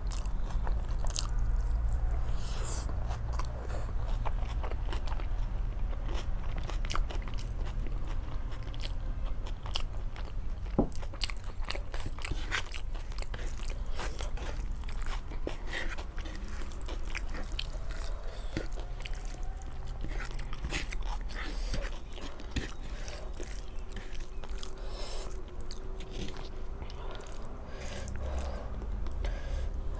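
A person chewing and eating rice with chicken curry close to the microphone: a constant run of small mouth clicks and soft crunches.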